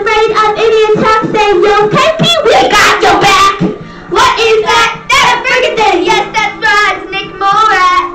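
Young girls singing loudly into a toy microphone, line after line with short breaks.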